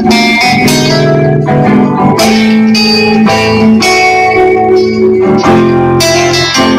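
A band playing a song, with guitar to the fore; sustained chords change every second or so.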